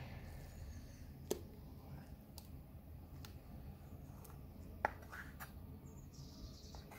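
Kitchen knife cutting a raw duck breast on a wooden cutting board: quiet scraping with a few sharp taps of the blade on the board, the loudest about a second in and just before five seconds in.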